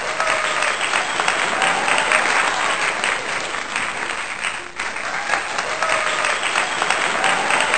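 Applause from a large crowd, dense and steady, added over the footage as a sound effect, with a brief dip about five seconds in.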